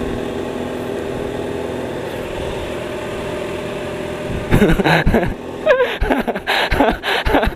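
Sport motorcycle engines idling steadily, then about four and a half seconds in a bike revs hard and accelerates away, its pitch climbing and dropping through quick gear changes.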